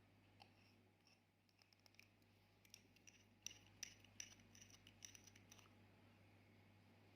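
A faint, irregular series of small sharp clicks and light clinks, about a dozen, densest from three to six seconds in, from small hard objects being handled.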